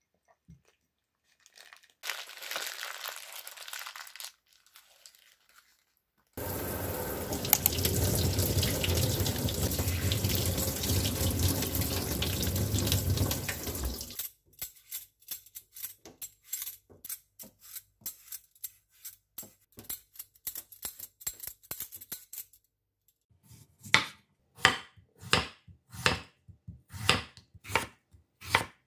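Kitchen tap water running hard over a potato into a stainless steel sink as it is rinsed, stopping about halfway through. A run of quieter light strokes follows. Then a chef's knife slices through a raw potato onto a wooden cutting board in sharp, regular chops, roughly three every two seconds.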